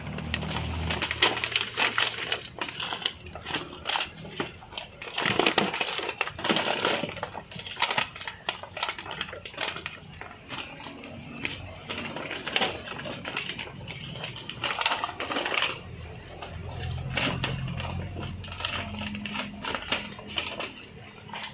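Irregular clattering knocks, scrapes and cracks of old motorcycle parts being handled and worked on, coming in busy clusters, with a low steady hum joining in near the end.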